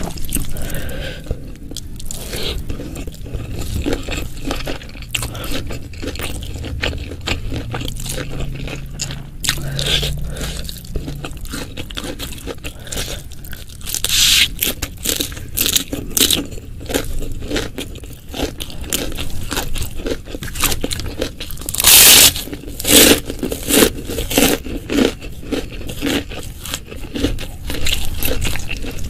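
Close-miked eating of shrimp curry, fried tempeh and petai beans: steady chewing and crunching mixed with scraping. A few loud, sharp crunches come about two thirds of the way through.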